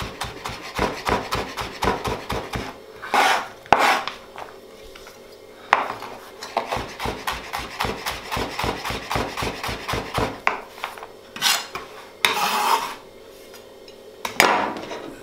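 Chef's knife cutting turnip slices into julienne on a plastic cutting board: quick, even knocks of the blade on the board in two runs, with a few louder scraping sweeps between them and near the end as the cut strips are pushed across the board.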